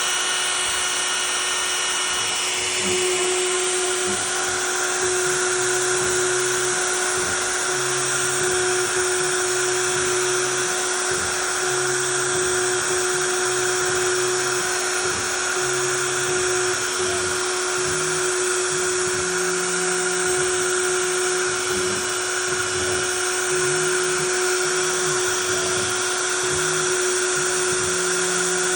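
CNC router cutting wood: the spindle runs with a steady whine while the axis stepper motors hum underneath, changing pitch every second or so as the cutter changes direction and speed.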